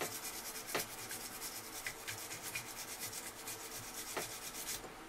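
A brush scrubbing back and forth inside a solvent-wet pistol slide (HK USP Expert), making a steady run of quick scratchy strokes. There are two sharper knocks, about a second in and near the end.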